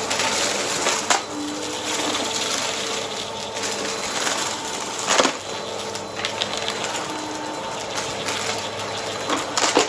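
Vacuum cleaner running steadily with its brush roll picking up crunchy debris, with sharp crunches about a second in, around the middle and near the end.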